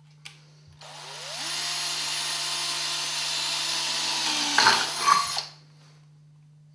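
Cordless drill, set to its lowest speed for metal, spinning up and drilling a metal twist bit into a metal bar for about four and a half seconds, with two louder bursts near the end before the motor stops.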